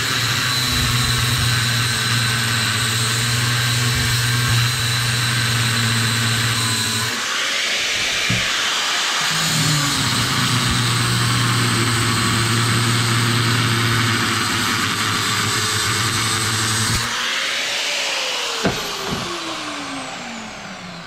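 Angle grinder with a cut-off disc running under load, cutting through the steel of a refrigerator compressor motor to free the copper-wound stator. The pitch shifts briefly around seven seconds in as the cut changes. About seventeen seconds in it is switched off and spins down with a steadily falling whine.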